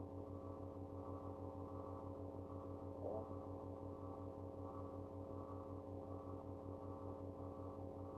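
A faint, steady electrical hum made of several held tones, with a low drone that pulses evenly, and a small soft sound about three seconds in.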